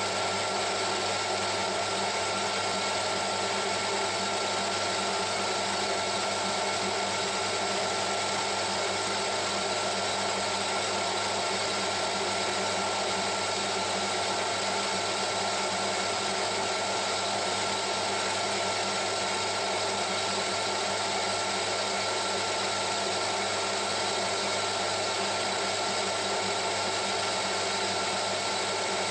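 Metal lathe running steadily at about 540 rpm under power feed, turning a tough, near-hard steel arbour on a final finishing pass. It gives a constant hum with a steady whine on top.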